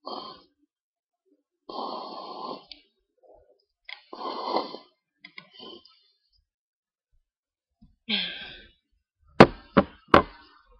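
A person sniffing pepper up the nose in several long noisy draws, then a catching breath and three sharp stifled sneezes in quick succession near the end.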